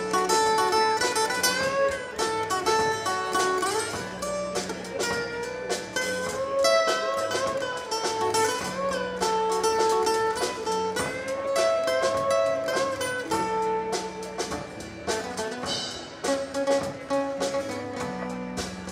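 Live acoustic band music led by acoustic guitars, with a melody line of held, wavering notes over a repeated low bass figure.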